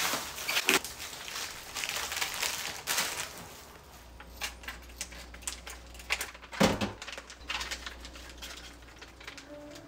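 Plastic grocery packaging rustling and crinkling as items are unpacked from a cardboard box. This is followed by quieter handling clicks and one sharp knock about two-thirds of the way in.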